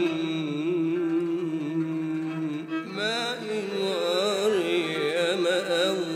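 Male voice chanting an ornamented Arabic maqam melody over a low steady drone. He holds a long wavering note, then breaks about three seconds in into a more ornamented, rising and falling phrase.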